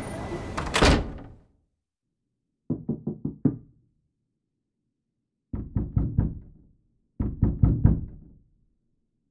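Knocking on a door: three bouts of four or five quick raps with silences between them. They come after a single loud thud about a second in that fades out.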